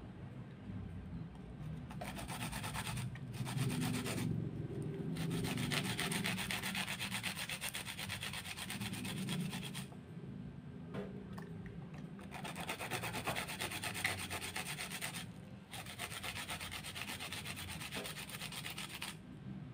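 Wooden pestle grinding shallots and garlic against a rough stone mortar (cobek), a gritty rhythmic rubbing and scraping in runs of strokes with several short pauses.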